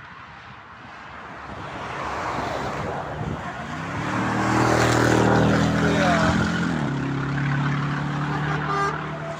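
Renault truck's diesel engine pulling hard as it passes, growing louder to a peak about five seconds in, its steady engine note dropping lower about seven seconds in, over tyre and road noise.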